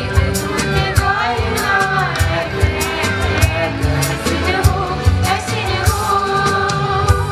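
A mixed group of teenage voices singing a Christmas carol through microphones, over amplified backing music with a steady beat and bass.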